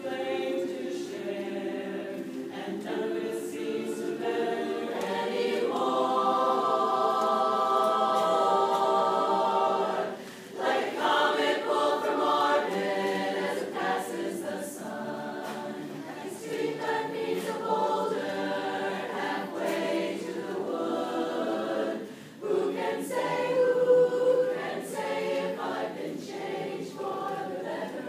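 Women's chorus singing sustained chords in close harmony, a cappella, with brief pauses about 10 and 22 seconds in.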